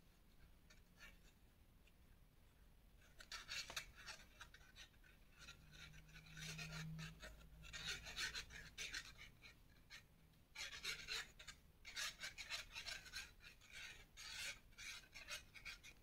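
Faint scratchy rubbing of a glue bottle's applicator nozzle drawn back and forth over cardstock as glue is spread, in quick runs of strokes that begin a few seconds in and pause briefly near the middle.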